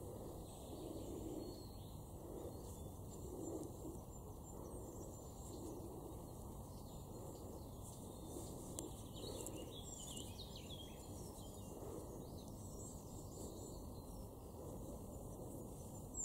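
Quiet garden background with faint birdsong: scattered high chirps, and a short cluster of calls about nine to eleven seconds in.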